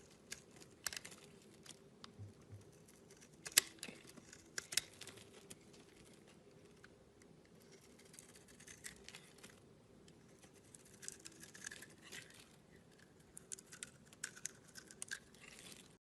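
Slime being squeezed and worked, making irregular sticky clicks and crackles, with the sharpest pops about three and a half and five seconds in.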